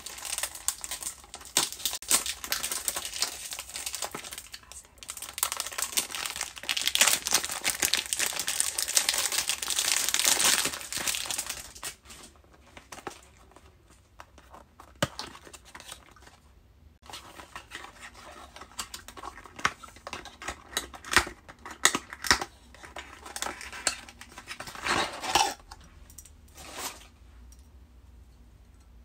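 Packaging crinkling and tearing as a boxed perfume is unwrapped, dense and loudest over the first twelve seconds or so. After that come scattered rustles and small clicks, with one brief louder rustle near the end.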